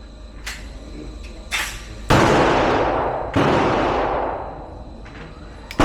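Pistol shots, several at uneven spacing: the loudest about two seconds in, another a little over a second later and one more at the very end, with fainter shots between. Each shot has a long echoing decay.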